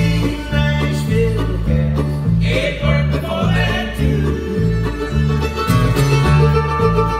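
Bluegrass string band playing live: upright bass walking steady notes, about two a second, under picked mandolin, banjo and acoustic guitar.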